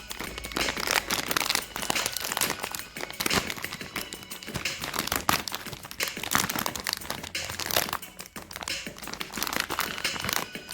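Candy and chocolate wrappers crinkling and crackling irregularly as they are handled and torn open, with faint background music.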